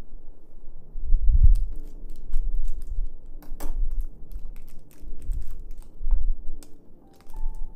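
Hands handling small pieces of food on a wooden cutting board: an irregular run of light taps and clicks, mixed with several dull knocks on the board.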